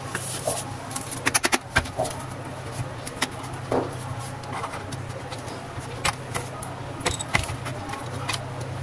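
Light plastic clicks and knocks as the casing, grille and fan housings of a mini portable cooler are handled and pulled apart, over a steady low hum.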